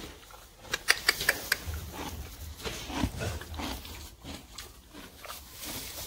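A pony pulling at and chewing hay: a quick cluster of sharp crunches and rustles about a second in, then softer, uneven rustling and munching.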